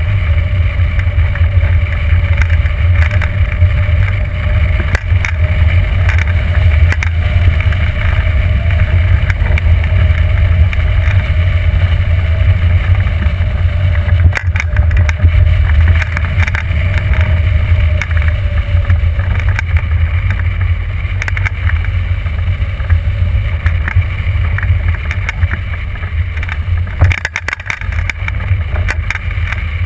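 Airflow buffeting the microphone of a wing-mounted camera on a hang glider in flight: a loud, steady low rumble, with a faint steady whistle underneath that fades out about two-thirds of the way through.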